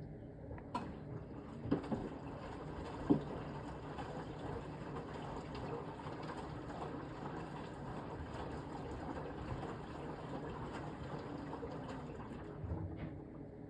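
Beko BM3WT3741W washing machine drawing in water: a steady rushing hiss of the fill starts abruptly about a second in and cuts off near the end, with a couple of light knocks early on.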